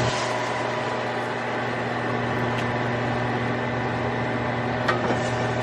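Steady electric hum and whir of a fan running, with a couple of light clicks from kitchen utensils.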